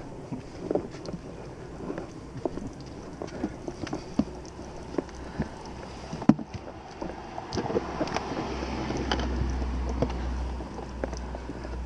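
Scattered light knocks and rubbing of hands handling an aluminum boat and its outboard during a wipe-down. A low wind rumble on the microphone builds about eight and a half seconds in and fades before the end.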